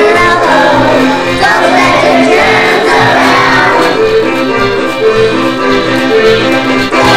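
A group of children singing a song over instrumental accompaniment, with steady held chords beneath the voices.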